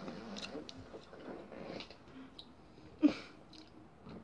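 Mouth sounds of someone chewing a SweeTarts candy tablet, with scattered small clicks and one short, louder mouth sound about three seconds in.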